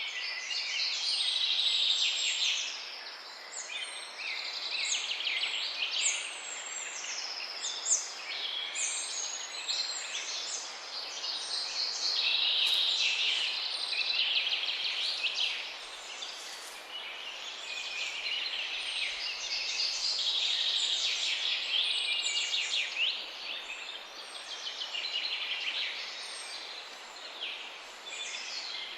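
Chorus of many songbirds singing at once, with a dense, unbroken run of overlapping chirps, trills and warbles. It sits over a steady background hiss.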